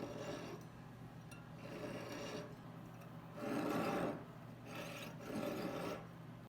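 A hand file rasps on a gold ring in repeated, faint strokes, cutting in and cleaning up the groove line before the ring is soldered.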